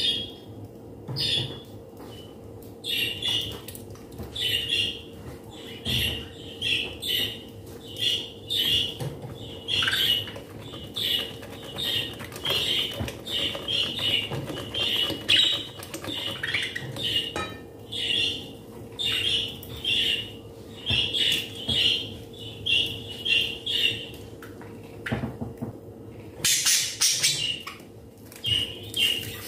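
Silicone whisk beating runny cake batter in a glass bowl: short squeaky scraping strokes, one to two a second, over a faint steady hum. Near the end, a brief louder rustle.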